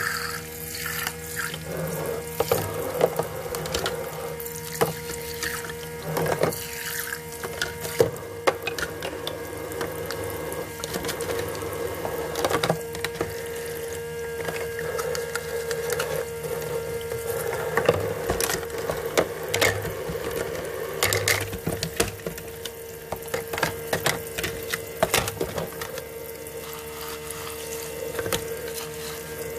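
A toy kitchen sink's small water pump runs with a steady whine while water trickles and splashes from the toy tap, with scattered small clicks and knocks of plastic.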